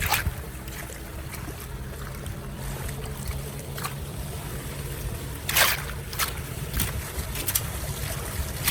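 Steady rush of running water, with several short, sharp noises, the loudest a little over halfway through.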